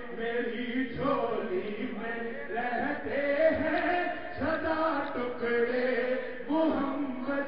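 A man's voice chanting devotional verse into a hand-held microphone, in long melodic phrases with held notes.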